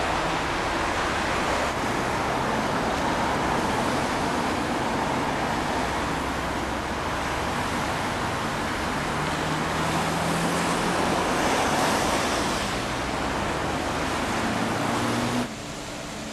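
Steady rush of road traffic noise, with a low engine hum about nine seconds in. It drops off abruptly near the end.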